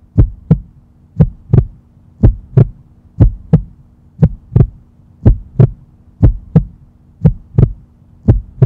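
Heartbeat sound effect: a steady lub-dub of paired thumps, about one beat a second, over a faint low hum.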